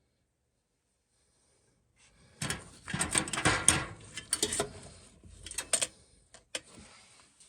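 Irregular clattering, knocks and rustling of objects being handled. It starts about two seconds in after near silence and thins out to a few separate knocks near the end.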